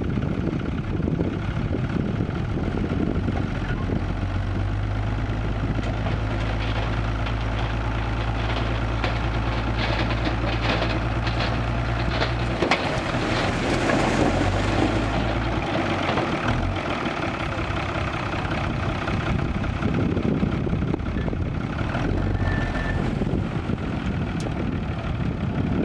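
Six-wheel dump truck's diesel engine running steadily while its hydraulic hoist tips the loaded bed, with rocks and soil sliding and clattering out over the tailgate. The steady low hum of the engine drops away about halfway through.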